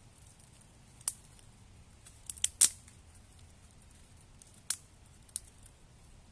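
Dry twigs snapped by hand into short lengths to feed a small twig stove: a handful of sharp, separate snaps, the loudest about two and a half seconds in.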